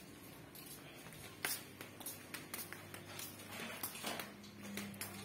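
Footsteps in rubber flip-flops on concrete paving: a string of light, irregular slaps and taps, over a faint steady low hum.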